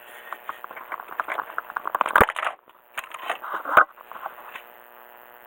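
Pillow-ball upper mounts of Öhlins coilovers on an ND Mazda Roadster creaking and clicking in quick succession, with two heavier knocks about two and four seconds in. The creak is the sound typical of pillow-ball upper mounts.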